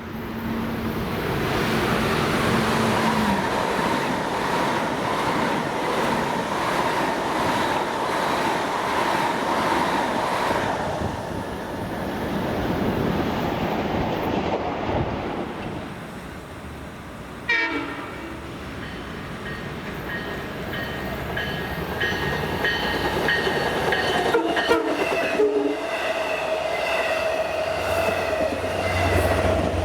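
A Long Island Rail Road train passing at speed, with continuous wheel and rail noise, and a train horn sounding.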